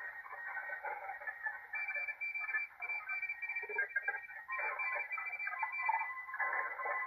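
A 40-metre CW pileup heard through a Malachite DSP SDR receiver: many Morse code signals keyed at once, beeping at different pitches over band noise. A strong high-pitched keyed signal comes in about two seconds in, and a lower one joins about halfway through. The signals are too many and too close together for the receiver's CW decoder to read.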